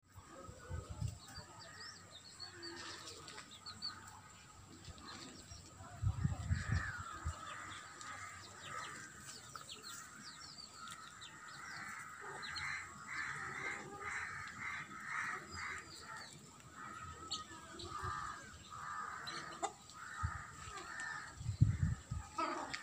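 Birds calling over and over: thin high chirps mixed with runs of harsher, repeated calls. Two low rumbles on the microphone, about six seconds in and near the end, are the loudest moments.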